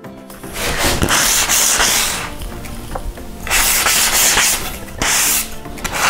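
Abrasive sanding sponge rubbed in several long rasping strokes along the edge banding of a melamine furniture board, smoothing off leftover banding and glue after trimming.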